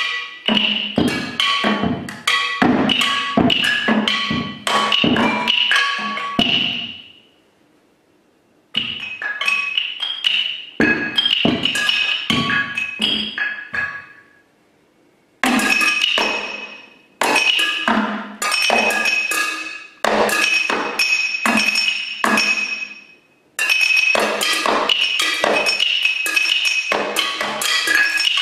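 Solo percussion played with mallets on a tabletop set of small objects such as bottles and tins: fast, irregular strikes that each give a short ringing pitch. The strikes come in dense flurries broken by sudden silences, two of about a second and one brief one near the end.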